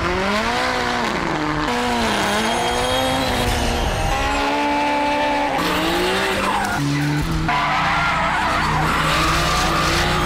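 Drift cars' engines revving up and down as they slide, with tyres squealing and skidding.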